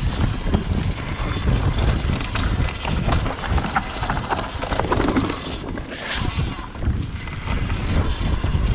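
Wind buffeting the microphone over the rumble of knobbly tyres on a dirt trail and the rattle of an Orange Stage 6 full-suspension mountain bike descending at speed, with frequent small knocks from roots and bumps.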